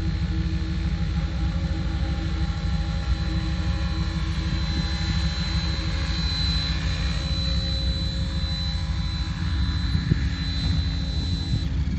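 Electric RC helicopter (Synergy E5) in flight: a steady high whine from its motor and rotor over a low rumble. The whine stops shortly before the end.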